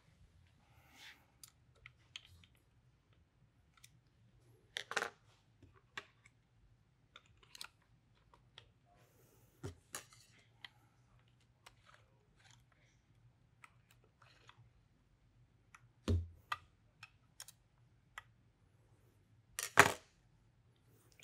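Sparse, faint clicks, taps and knocks of hand tools and the FX Maverick air rifle's metal parts being handled and set down on a tabletop, with two louder knocks in the second half.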